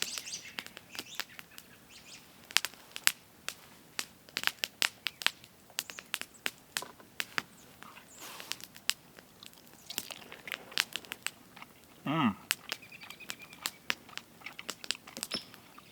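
Someone eating a hot-sauced chicken wing: irregular wet clicks, smacks and chewing, with a short hum falling in pitch about twelve seconds in.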